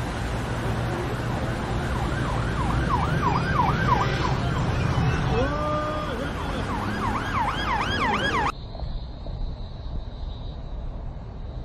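Emergency vehicle siren yelping in fast rising-and-falling sweeps, about three a second, over the low rumble of road traffic. A little past two-thirds of the way it cuts off suddenly, leaving a quieter, steady hiss.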